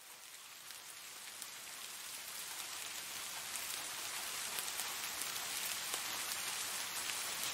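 Steady rainfall with scattered faint drop taps, fading in over the first three seconds or so and then holding steady.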